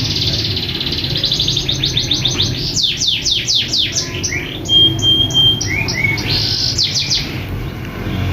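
Lovebird chirping loudly: rapid trills of high chirps, then a run of quick downward-sweeping calls about three seconds in, a short level whistle around the middle, and more chirps near the end.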